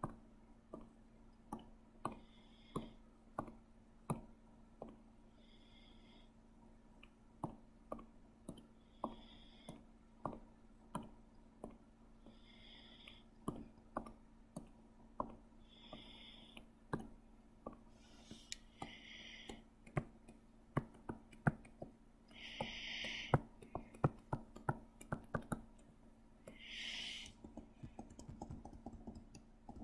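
Sharp clicks, irregular at about two a second, from computer input during digital drawing, with a short hissing scrape every second or two that grows louder in the second half; a faint steady hum underneath.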